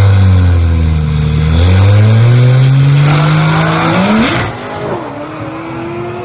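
Car engine under hard acceleration. Its note drops once about a second and a half in, then climbs steadily to a peak at about four seconds, where it suddenly gets quieter. It runs on at a lower level, rising again.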